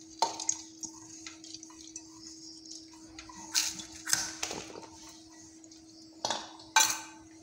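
Lentils tipped from a steel bowl into a pressure cooker, the bowl clinking sharply against the cooker rim several times, loudest near the end, over a steady low hum.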